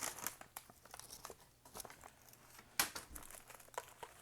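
Paper packaging crinkling and tearing in irregular short crackles, as a fast-food wrapper or bag is handled and opened, with one sharper, louder crackle nearly three seconds in.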